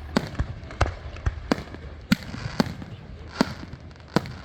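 Fireworks going off: an irregular string of about nine sharp bangs and pops, a few per second, over a low rumble.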